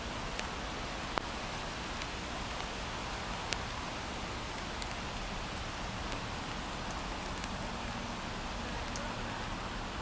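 Steady rain hiss, with now and then a single sharp drop ticking close by.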